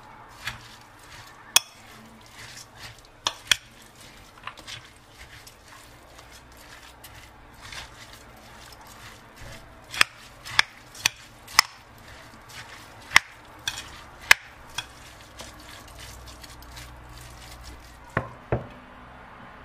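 A metal spoon stirring a wet rice and vegetable filling in a ceramic bowl, with sharp clinks of the spoon against the bowl at irregular intervals and a quick run of them about halfway through. Two more knocks come near the end.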